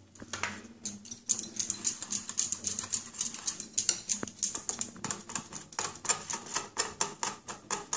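Wire whisk beating thin atta-and-semolina batter in a glass bowl, the wires clicking rapidly against the glass, several strokes a second.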